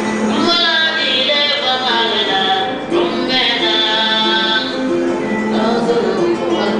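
Live music: a plucked string instrument repeating a low note pattern, with a high, wavering melody line laid over it in two long phrases.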